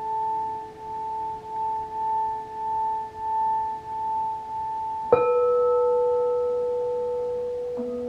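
Singing bowls played with a mallet. For the first five seconds one bowl sings a steady pair of tones that swell and fade about one and a half times a second, as when the mallet is circled around the rim. About five seconds in another bowl is struck and rings on with a clear tone, and a further bowl with a deeper note is struck near the end.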